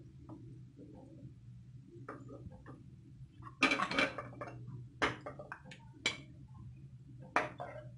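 A steel slotted skimmer scrapes and knocks against a kadai and a plate as fried onions are lifted out of hot oil. There are a few sharp scrapes and taps, the longest about three and a half seconds in, over a steady low hum.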